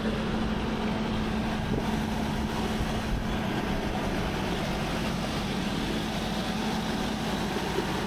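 Generator engine running steadily, a constant drone with a steady low hum.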